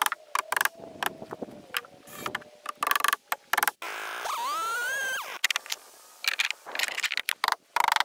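Hammer blows driving nails into wooden boards, a series of sharp knocks. About four seconds in, a gas chainsaw revs up and runs through a board for about a second, then drops off.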